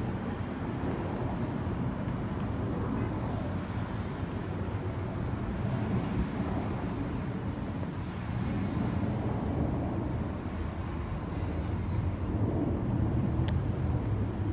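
Airbus A321-231 climbing out after takeoff, its twin IAE V2533 turbofan engines heard from afar as a steady low rumble. A brief click near the end.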